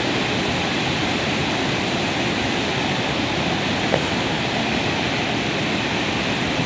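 Steady rush of water tumbling down a small waterfall in a stream, with one faint short tick about four seconds in.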